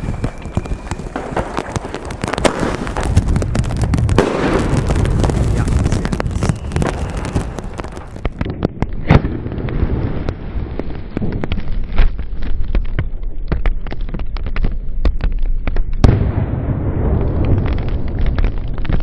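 New Year's Eve fireworks: a 30 mm single-shot shell tube fired with a red burst, against a continuous din of other fireworks going off. Several sharp bangs stand out, about nine, twelve and sixteen seconds in.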